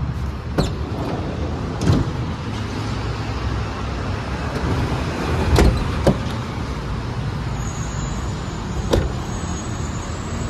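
Door handles of a Chevrolet Tornado van being pulled, giving about five sharp clicks and knocks over a steady background noise. The loudest pair comes about five and a half to six seconds in.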